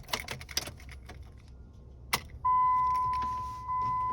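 Keys jingling and clicking as the ignition key is worked, a sharp click about two seconds in as it turns. Then the 2005 Ram 2500's dash warning chime sounds: a steady beep that fades and repeats about every 1.2 s, over the faint rushing of the newly installed heater blower motor starting up on its first test run.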